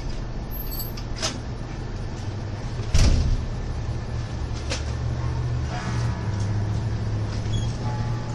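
Steady low rumble of a motor vehicle engine, with a few sharp knocks and one loud bang about three seconds in.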